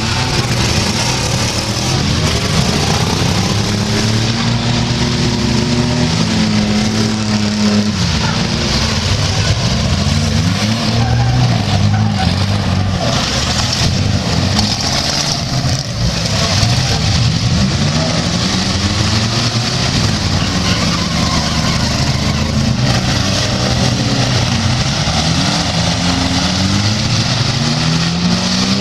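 Several demolition-derby pickup and minivan engines revving up and down over and over at once, loud.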